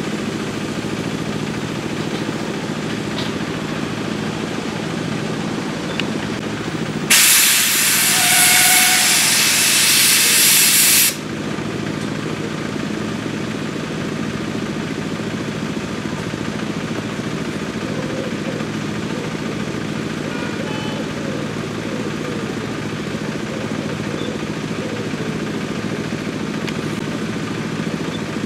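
A miniature steam locomotive lets off a loud hiss of steam about seven seconds in. The hiss lasts about four seconds and cuts off suddenly. Under it a steady, low engine hum runs throughout.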